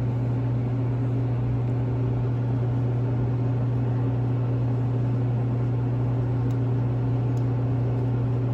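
Steady low hum of a Dixie Narco refrigerated drink vending machine running, with two faint ticks late on.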